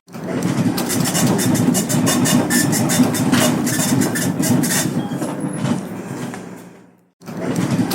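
Dot matrix printer printing: a dense, rapid clatter of print-head strikes over a low buzz. It dies away near the end, stops for a moment, then starts again.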